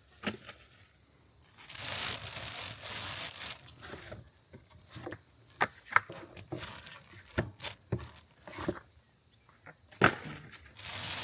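Cardboard packaging and parts being handled while a deer feeder is unboxed: rustling with scattered sharp clicks and knocks, over a faint steady insect hum.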